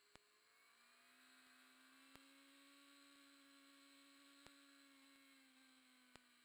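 Near silence: an empty audio track holding only a faint steady electronic hum, with a soft tick about every two seconds.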